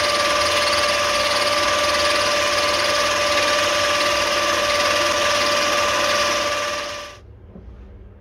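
Mini lathe running under power feed: a steady whirring with a constant whine, stopping abruptly about seven seconds in.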